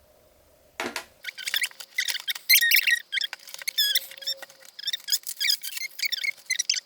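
Plastic packaging and parts being handled during an unboxing: a run of quick crinkles and squeaks, starting about a second in as pieces are worked loose.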